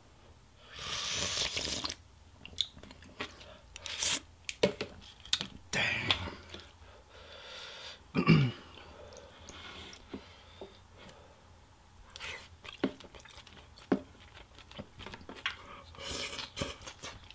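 Eating pho: a loud slurp of hot broth from a spoon about a second in, and another slurp of rice noodles near the end. Between them, chewing and small clicks of chopsticks and spoon, with a short falling vocal sound midway.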